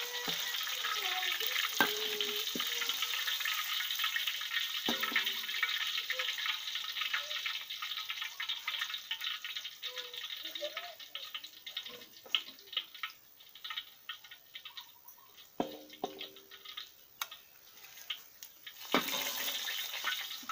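Hot oil sizzling in a steel wok as a barramundi deep-fries, with a metal spatula scraping and knocking against the wok. The sizzle thins out partway through as the fish is lifted out of the oil.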